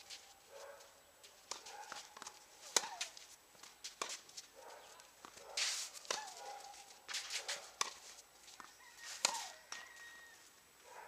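Tennis match play: irregular sharp knocks of a tennis ball being struck and bouncing, the loudest about three seconds in and again near the end, with short squeaks from shoes on the court between them.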